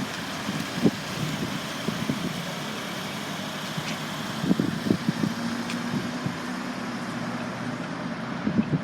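Steady vehicle noise, with a few soft knocks.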